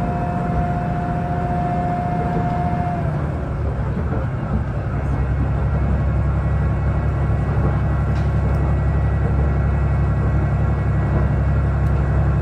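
A train running, with a steady low rumble. A steady high tone stops about three seconds in, and the low rumble grows stronger from about five seconds on.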